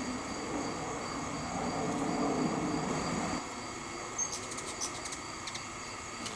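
Insects trilling steadily under a low rumble that is loudest about two to three seconds in and stops about three and a half seconds in. Near the end, a quick run of sharp, high hummingbird chips.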